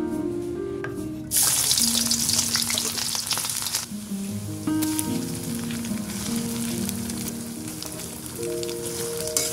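Chopped food tipped into hot oil in a wok, setting off a loud sudden sizzle about a second in that settles into steady frying. Soft background music plays underneath.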